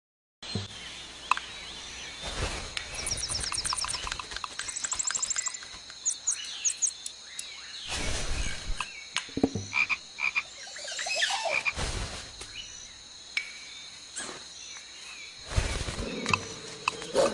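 Frog croaking and trilling sound effects: rapid pulsed trills and scattered croaks and chirps, broken by several louder thumps, over a steady high-pitched tone.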